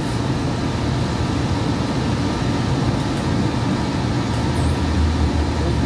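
Steady running noise of a Hudson-Bergen Light Rail car in motion, heard from inside the car, with a deeper rumble swelling about five seconds in.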